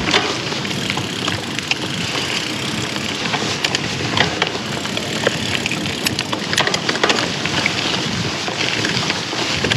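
Mountain bike ridden fast over dirt singletrack: steady tyre and wind rush with frequent sharp clicks and rattles as the bike goes over roots and rocks.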